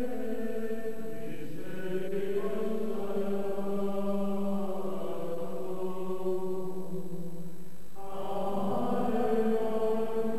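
Voices singing plainchant in unison, slow and held notes that move stepwise, with a brief break near eight seconds before the line resumes.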